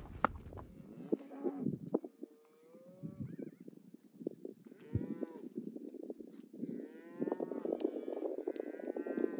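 Cattle mooing: several separate calls, the longest and strongest near the end.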